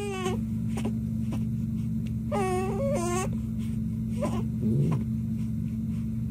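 Baby-laughing sound effect: an infant's giggling in a few short bursts, the longest about two to three seconds in, over a steady low hum.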